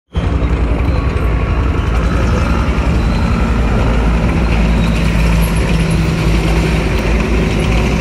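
A World War II Stuart light tank's engine running steadily with a loud, low drone as the tank drives slowly past on its tracks.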